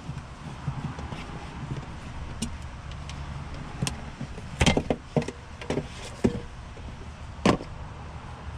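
Hand tools and parts being handled on a car floor pan: a few sharp clicks and knocks, the loudest clustered in the middle and one more near the end, over a steady low hum.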